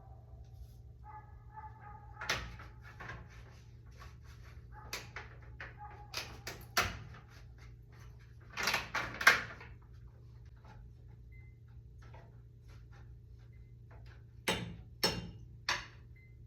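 Scattered knocks and clatter of objects being handled and set down, the loudest a burst about halfway through and three sharp knocks near the end. A dog whines briefly about a second in, over a steady low hum.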